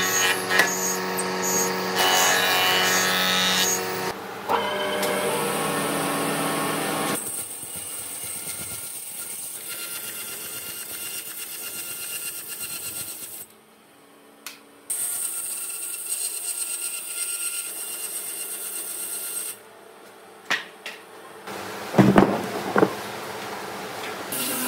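Woodworking machines in a run of short shots. A jointer runs with a steady hum as a thick hardwood block is fed across its cutterhead, and later a bandsaw cuts through a block with a quieter, noisier sound. A few sharp loud knocks come near the end.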